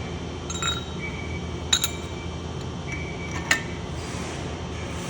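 Steel parts of a bushing puller clinking together as the puller is fitted: several sharp metallic clinks with a short ring, the loudest a quick double clink and one more a couple of seconds later, over a steady low hum.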